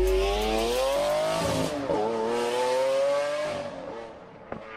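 Car engine revving as a sound effect: the pitch climbs, drops briefly about two seconds in, climbs again, then fades away, with a short tick near the end.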